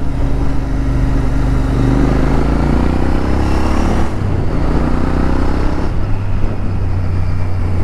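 Royal Enfield Interceptor 650's parallel-twin engine accelerating hard to overtake a truck, rising in pitch for a couple of seconds and dropping at a gearshift about four seconds in, then running steadily, with wind rush over the mic.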